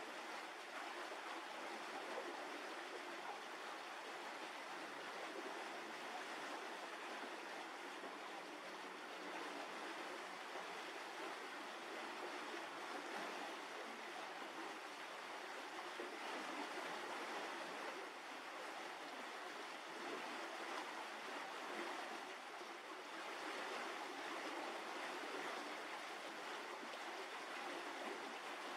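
Steady, even rushing noise with no distinct events, like the background hiss of an outdoor recording.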